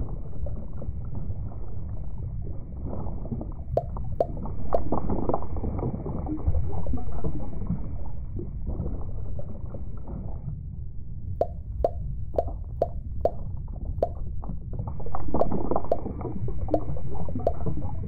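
Muffled underwater gurgling and bubbling, with a scatter of small bubble plinks that come thickest about four seconds in and again from about eleven seconds on.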